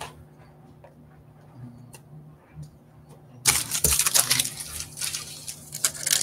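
A foil trading-card pack wrapper crinkling loudly as it is picked up and torn open, starting about halfway through after a few quiet seconds with faint handling ticks.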